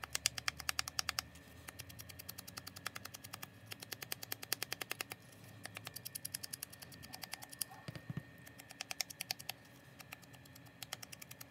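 Sponge dauber dabbed quickly against the edges of a paper label to ink them, a rapid patter of taps about ten a second, in runs with short pauses between.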